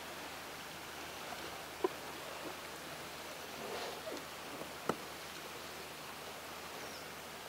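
Steady hiss of water and wind around a fishing kayak, with two short knocks, one about two seconds in and one about five seconds in.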